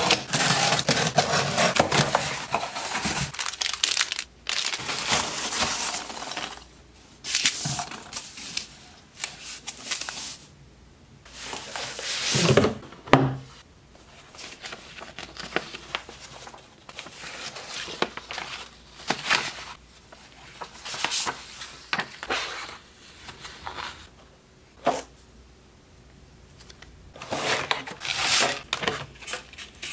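Packaging being opened by hand: a box cutter slitting packing tape on a cardboard shipping box, with long tearing rustles in the first few seconds. Then irregular scrapes and rustles of cardboard and paper, and crinkling of a clear plastic case near the end.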